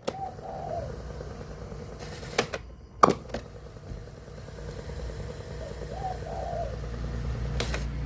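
Low hum and several sharp clicks from a radio cassette player, with a faint wavering tone twice, in a gap between broadcast music.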